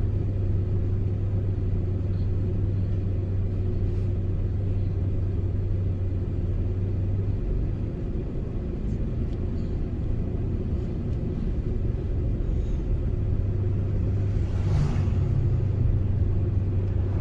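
Steady low engine and road rumble heard from inside a moving pickup truck's cabin, with a brief louder hiss near the end.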